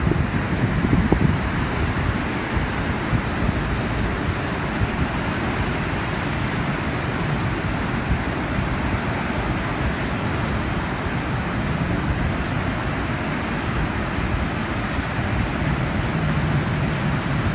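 Wind buffeting the microphone in a steady low rumble, with ocean surf washing underneath.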